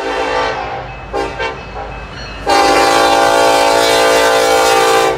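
Freight locomotive air horn sounding a chord: a fading blast, two short toots, then one long loud blast that cuts off suddenly near the end.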